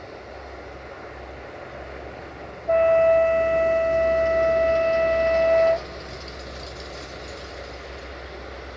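Horn of a 060-DA (LDE2100) diesel-electric locomotive heading a freight train, sounding one steady note for about three seconds, starting a little under three seconds in, over a low rumble. It is a warning blast to track workers walking on the line ahead.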